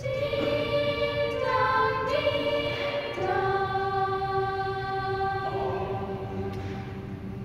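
Mixed youth choir singing a cappella in several parts: a loud chord at the start, a few chord changes, then a long held chord that softens and fades near the end as the song closes.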